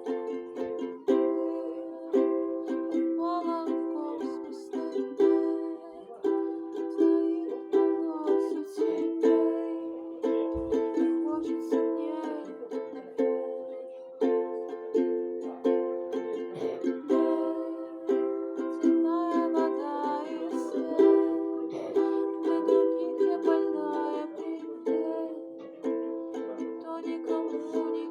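Ukulele being strummed, a steady run of chords with regular strokes.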